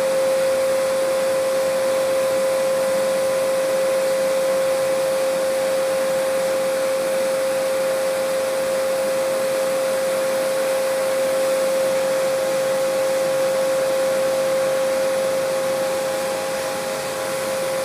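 High-pressure washer running steadily: a constant motor whine over the hiss of the water jet, with a slight dip near the end.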